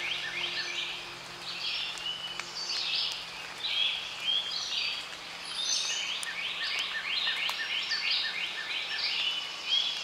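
Outdoor nature ambience of high chirping calls, repeated in quick runs of several chirps, over a faint drone that fades out in the first three seconds.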